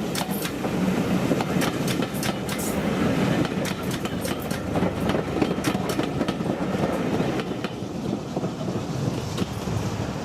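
Railway train rolling past, its wheels clacking over the rail joints in quick, uneven runs above a steady rumble. The clacks thin out and the sound gets a little quieter after about eight seconds.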